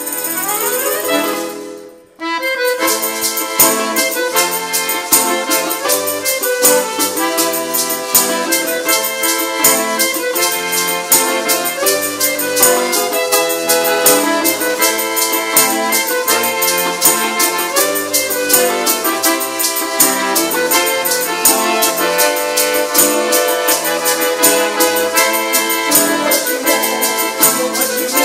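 Russian folk ensemble playing instrumentally: a bayan (button accordion) carries the melody over strummed balalaika, with tambourine and maracas keeping a fast, even beat. A rising run opens the passage and breaks off into a short pause about two seconds in, then the full band comes back in and plays steadily.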